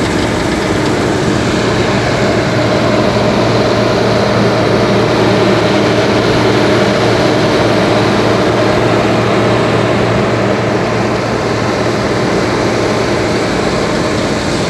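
Bizon Z056 combine harvester's diesel engine running steadily, heard close up on the machine.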